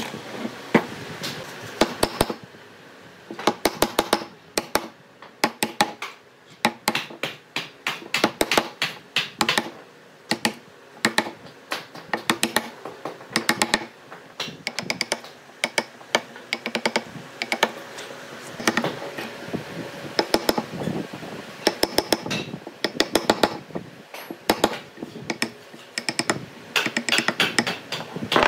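Quick, irregular taps and clicks in clusters, several a second with short pauses between, from hands-on work with tools in a woodworking workshop.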